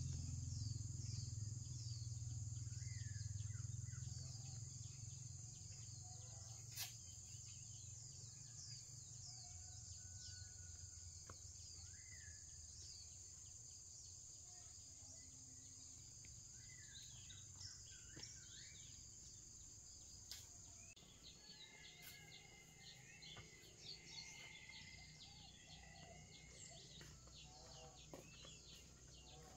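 Faint outdoor ambience: birds chirping in many short calls over a steady high-pitched insect drone, with a low rumble fading out over the first few seconds.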